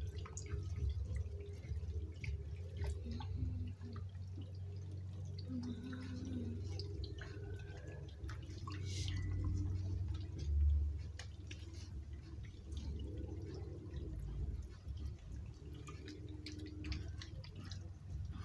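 Water splashing and dripping as raw tripe and intestines are squeezed, lifted and turned by hand in a plastic basin of water. There are scattered small splashes and drips over a steady low hum, and one louder thud about ten seconds in.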